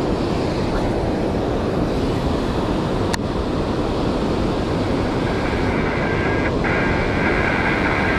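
Steady rush of river water flowing below a spillway, with one sharp click about three seconds in. From a little past halfway, a baitcasting reel whirs as line is cranked in, with a brief break.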